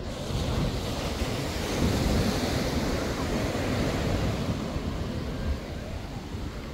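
Sea surf: a wave breaking and washing up the sand, swelling about half a second in, loudest around two seconds, then slowly easing off. Wind buffets the microphone throughout.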